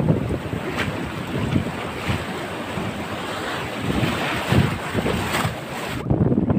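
Surf washing and foaming over a rocky shore, with wind buffeting the microphone. About six seconds in the wash of the waves drops away and mostly the wind buffeting remains.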